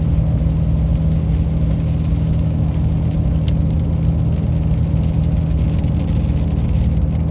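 Steady drone of a car driving, heard from inside the cabin: engine and road noise holding an even low hum.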